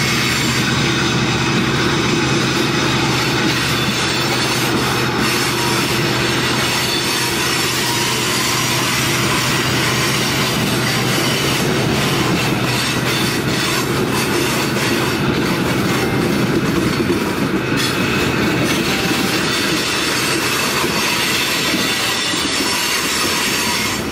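Freight train of tank cars rolling past, a steady rumble and clatter of steel wheels on the rails.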